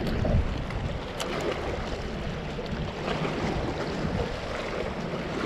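Wind buffeting the microphone over water washing against the rocks of a jetty, a steady rough rushing with gusty low rumble.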